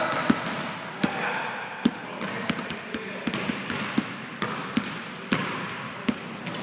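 Basketballs bouncing on a hardwood gym floor as players dribble, with thuds coming at uneven intervals of about half a second to a second, over a background of faint voices.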